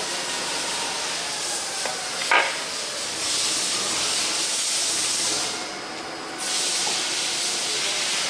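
A steady high hiss that cuts out for about a second just after five seconds in and then resumes, with one sharp knock a little over two seconds in.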